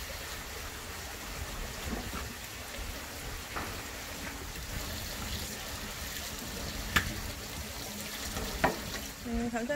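Kitchen knife working fish fillets on a plastic cutting board: soft scraping and cutting, with a few sharp taps of the blade on the board, over a steady hiss.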